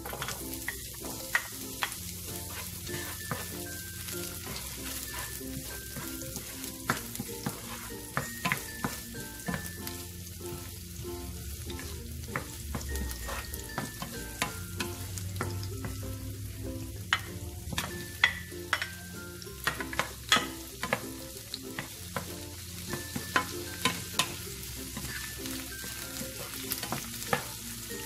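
Chopped onion and garlic, then tomato wedges, sizzling in hot oil in a nonstick frying pan while a wooden spatula stirs them, with irregular sharp clicks and knocks of the spatula against the pan, more frequent in the second half.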